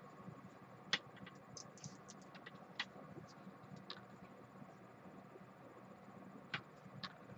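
Faint handling of cables and small plastic cable clips: scattered light ticks and a few sharper clicks, the loudest about a second in and two near the end, over a low room hum.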